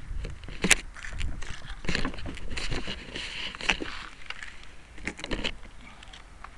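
Handling noise picked up by a camera mounted on a model airplane: irregular knocks, clicks and rustling as the plane is carried and set down on asphalt. The sharpest click comes about a second in.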